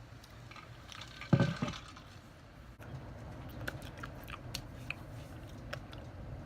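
A short, low burp about a second in, then blueberries being chewed, with many small clicks from the mouth.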